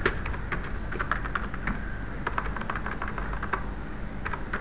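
Computer keyboard being typed on: a string of irregular key clicks, the sharpest right at the start, over a steady low hum.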